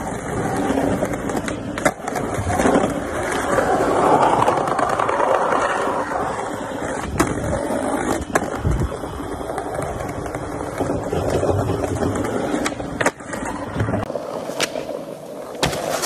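Skateboard wheels rolling over stone paving with a steady rumble, broken by several sharp clacks of the board.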